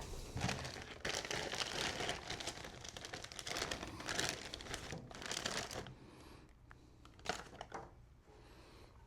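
Plastic packaging crinkling and rustling while parts are rummaged through, in dense bursts for about six seconds, then quieter with a few sharp clicks.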